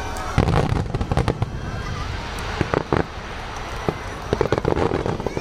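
Aerial fireworks exploding in a quick series of bangs and crackles, with clusters of reports about half a second in, around three seconds and again near the end.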